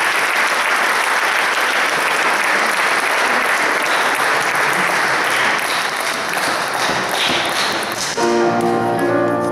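Audience applause that thins out over the last few seconds, then about eight seconds in a grand piano strikes a chord and lets it ring.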